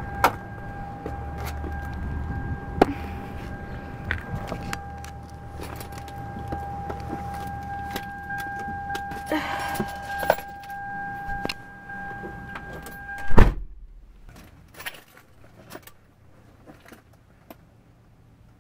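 Toyota Celica's door-open warning buzzer sounding one steady tone while keys jangle, with scattered clicks and knocks. About 13 seconds in, the car door slams shut, the loudest sound, and the buzzer stops at once; after that the closed cabin is quiet apart from a few faint clicks.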